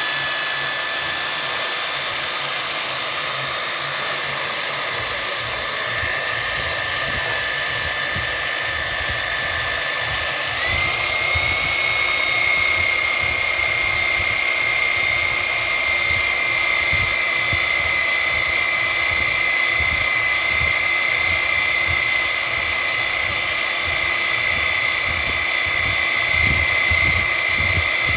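A small high-speed motor, like a power tool's, runs steadily with a high whine. About ten seconds in its pitch steps up a little, and it holds there.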